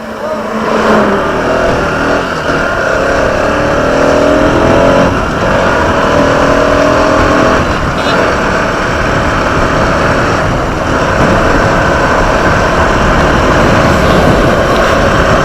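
Motorcycle engine accelerating while riding, its pitch climbing about a second in and again after about five seconds, over a steady rush of wind noise.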